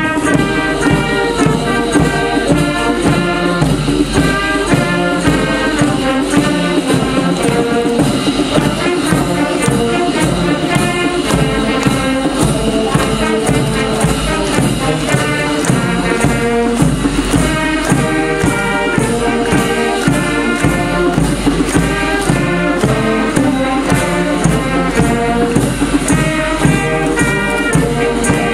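Marching wind band playing a tune on flutes, saxophones and brass, over a steady percussion beat.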